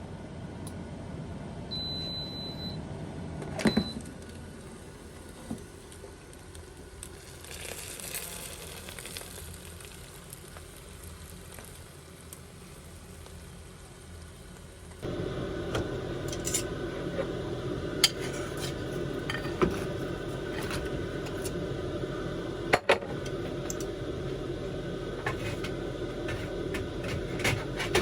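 Kitchen sounds: an appliance beeps briefly near the start, and after a cut about halfway through, dishes and utensils clink and knock repeatedly over a steady background hum.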